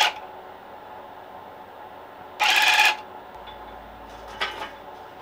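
Electric cut-pile rug tufting gun firing one short half-second burst about two and a half seconds in, punching yarn through monk's cloth. Fainter handling sounds follow near the end.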